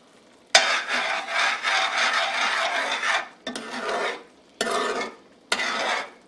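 Flat-tipped spoon stirring thick tomato gravy and scraping it along the bottom and sides of an aluminum pot. There is one long scraping stroke starting about half a second in, then three shorter strokes.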